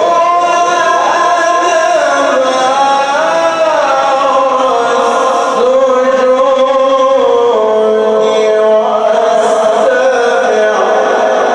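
Solo male Quran recitation sung in the melodic mujawwad style: long held notes with ornamental turns and slides in pitch, a new phrase beginning about halfway through.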